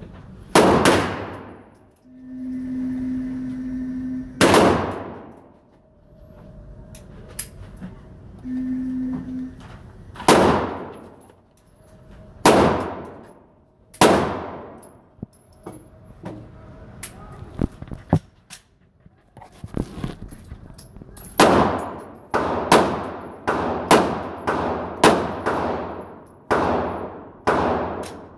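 Glock 19 9mm pistol firing steel-cased ammunition in an indoor range. Widely spaced single shots come over the first fifteen seconds, then a quicker string of about ten shots near the end, each with a ringing echo.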